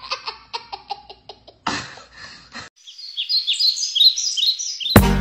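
A little girl's giggling laughter trailing off, then about a second of hissing noise, then quick, high, falling bird chirps for about two seconds. Music starts right at the end.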